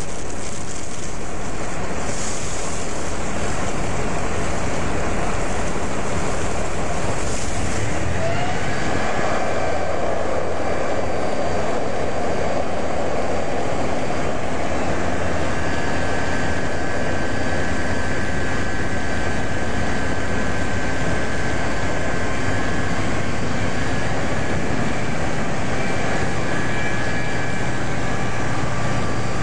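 Fire engine pumps running hard with the rush of several high-pressure hose jets. About eight seconds in the water rush grows stronger and steady engine or pump tones come in, holding to the end.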